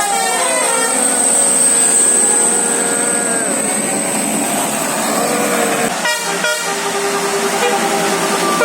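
A coach bus's basuri musical air horn playing a tune of held and gliding notes, the 'telolet' horn melody. Two short noisy bursts break in about six seconds in, and then the notes go on.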